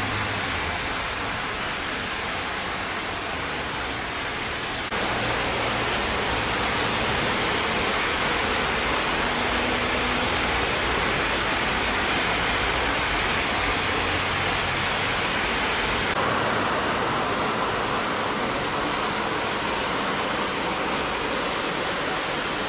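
Steady rain falling on pavement as a dense, even hiss, stepping up a little in loudness about five seconds in.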